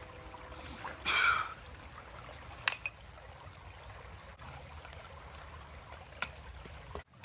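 Shallow creek trickling steadily over rocks, with a few sharp clicks and one short louder noise about a second in.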